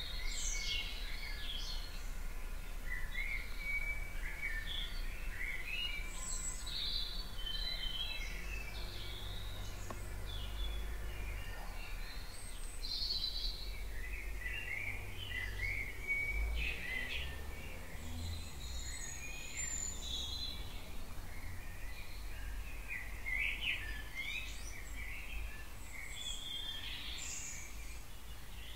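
Dawn chorus: several songbirds singing at once, with overlapping chirps, trills and warbled phrases, over a steady low rumble.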